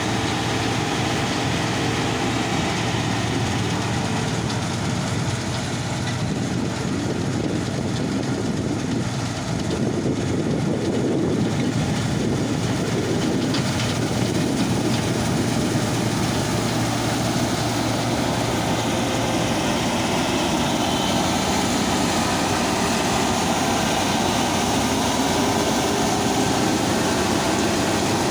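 Claas Lexion 750 combine harvester running steadily, engine and machinery making a dense, even roar; its low hum changes pitch about two-thirds of the way through.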